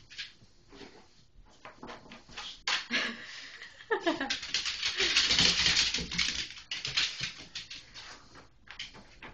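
Yorkshire terrier puppy rubbing itself dry in a pile of towels on a tile floor: fabric rustling and scrubbing, with the tapping and scratching of small claws on the tiles. The rubbing grows loudest about four to six and a half seconds in.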